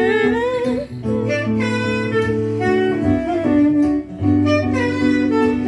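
Live jazz on a Yamaha MO8 keyboard and saxophone: held keyboard chords change every second or so, with a saxophone line wavering in pitch near the start.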